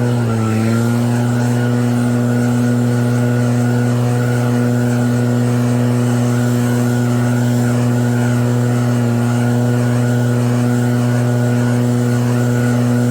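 Petrol engine of an EB7660RED snow blower running steadily at a constant speed, briefly dipping in speed about half a second in and then recovering.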